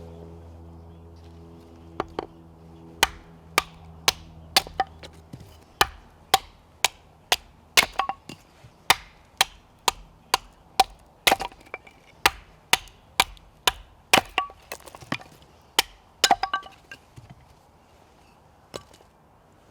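Firewood being chopped: a steady run of sharp blade-into-wood strikes, about two a second, which stop about three-quarters of the way through, with one last strike near the end.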